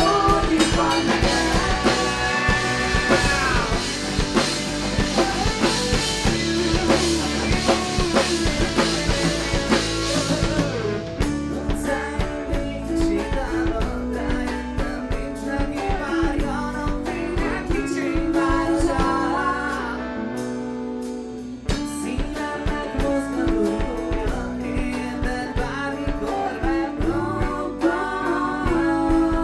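Rock band playing live: drum kit, guitar and singing. The heavy cymbal wash stops about eleven seconds in, and the band briefly drops back around twenty seconds before picking up again.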